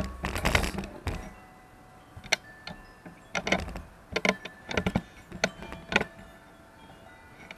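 Handling noise of a camera being repositioned close to the microphone: a rustle at the start, then a scattered series of sharp clicks and knocks for several seconds.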